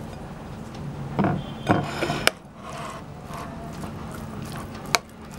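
Metal spoon scraping and clinking against a cut-glass bowl as thick hung curd is scooped into it: a cluster of scrapes and knocks about a second in, ending in a sharp clink, then another single sharp clink near the end.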